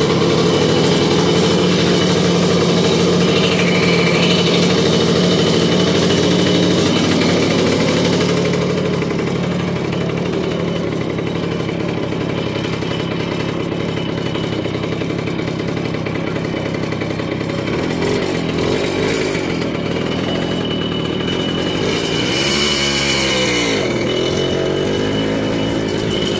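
Two-stroke Jawa moped engine running with its original, dented exhaust, steady at first, then rising and falling in speed several times in the second half as it is ridden off.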